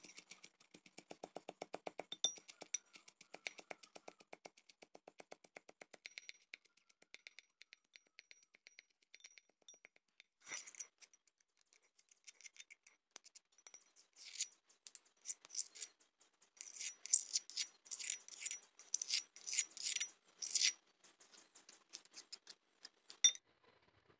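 Pestle pounding red chillies and garlic in a mortar with quick, even strokes, followed from about ten seconds in by a spoon scraping the paste around the mortar in louder, scratchy strokes.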